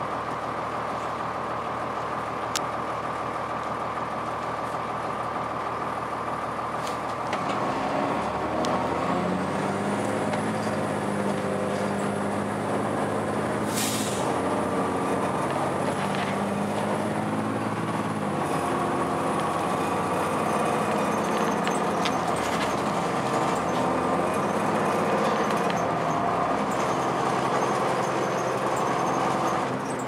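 Cummins ISC straight-six diesel of a 2002 Blue Bird CS transit bus, heard from inside the cabin: running steadily at idle for about seven seconds, then picking up as the bus accelerates, its pitch climbing and dropping back in steps as the Allison automatic transmission shifts up. A short, sharp hiss of air from the air brake system about halfway through.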